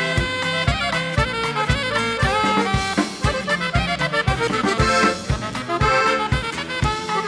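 Live norteño band playing an instrumental break: accordion carrying the melody in quick runs of notes over bass and a steady drum beat.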